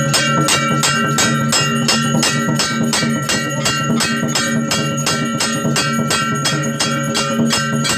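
Music: a steady beat of percussion strikes, about three to four a second, with bell-like ringing over held notes.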